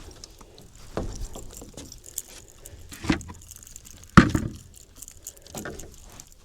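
Freshly landed mackerel thrashing, giving a few separate knocks and a light metallic rattle, the loudest about four seconds in.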